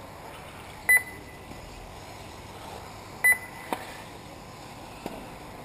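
Two short, high electronic beeps about two and a half seconds apart from the race's lap-timing system, each marking a car crossing the timing line. A couple of faint sharp clicks follow the second beep.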